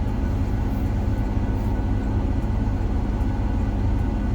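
Combine harvester's engine running steadily under load as the machine travels in high gear, a constant low hum.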